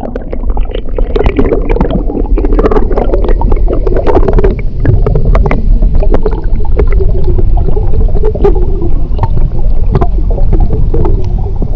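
Seawater heard through a submerged action camera's housing: a muffled, steady rushing and gurgling with many small bubble clicks and pops.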